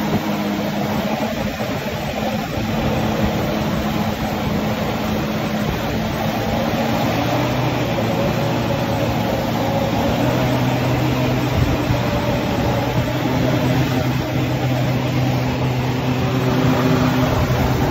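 Jet ski engine running steadily at speed while towing a tube, over a constant rush of spray from the wake. The engine's hum shifts a little lower about seven seconds in.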